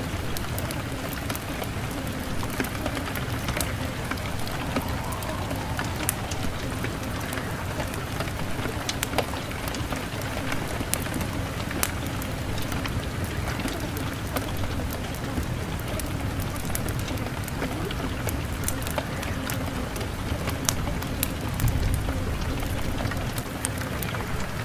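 Rain ambience: a steady patter with many scattered sharp drops, over a low steady hum.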